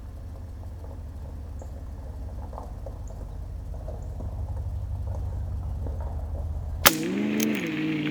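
A low steady rumble, then a single sharp crack of a .22 LR rifle shot from a CZ 457 bolt-action about seven seconds in. The crack is followed by a steady pitched hum that bends up and down in pitch.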